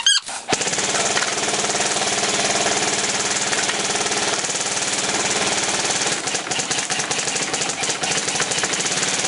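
Lancer Tactical M4 airsoft electric gun firing on full auto on an 11.1 V LiPo battery. It is one long, continuous, fast-rattling burst that starts about half a second in.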